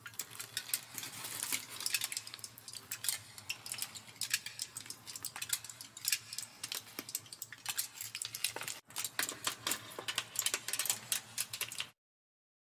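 Title-sequence sound effect of dense, irregular clicking and clattering, like small hard objects rattling. There is a brief break about nine seconds in, and it cuts off suddenly near the end.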